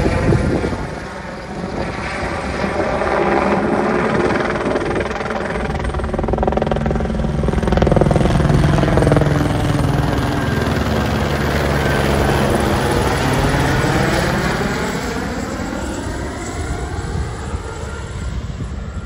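Light spraying helicopter flying low overhead, its rotor and turbine sound growing louder to a peak about halfway through, then fading as it moves off into the distance.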